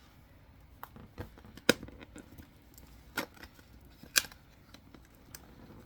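Packaging being opened and handled: a few sharp clicks and snaps with light rustling, two of them much louder, about a second and a half in and again about four seconds in.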